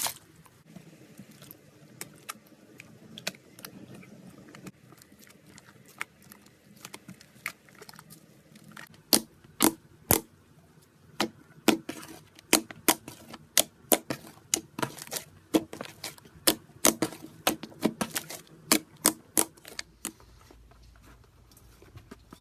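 A slime-filled stress ball being cut: a run of sharp clicks and snips, sparse at first, then coming quickly, several a second, from about nine seconds in until near the end.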